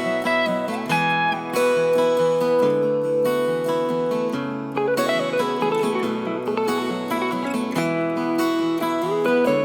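Background music: acoustic guitar playing a plucked, strummed melody.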